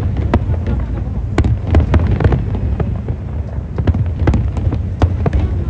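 Aerial fireworks bursting in quick, irregular succession: many sharp cracks and bangs over a continuous low rumble.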